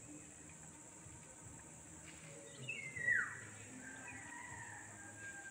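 A bird calling: a sharp whistle sliding steeply downward about three seconds in, then a thin, steady whistled note held for about two seconds.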